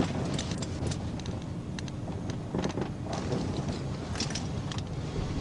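Low steady rumble of a vehicle, with scattered light clicks and rustling close to the microphone.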